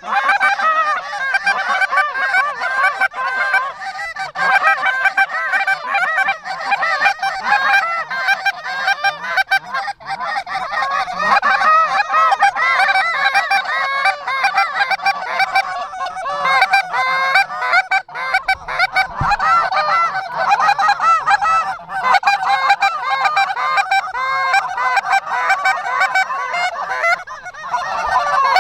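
Canada goose honking: many loud, overlapping honks and clucks in a continuous din with no break.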